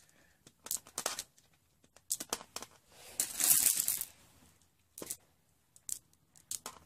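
Dry grass rustling and crinkling under the hands, with scattered light clicks of small rocks being set down among it. The longest stretch of rustling comes about three seconds in.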